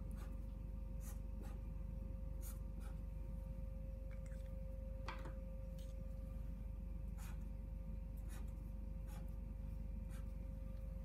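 Faint marker pen strokes and taps on paper, a dozen or so short scratches, over a steady faint tone and low hum.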